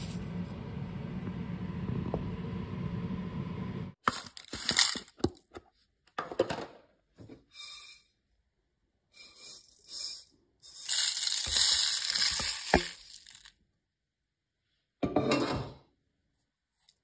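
A steady noise at the stove as toasted sticky rice and dried kaffir lime leaves are stirred in a dry pan. About four seconds in, several short spells of rattling and crackling follow, with dead gaps between them, as the dried leaves and toasted rice are tipped into a granite mortar.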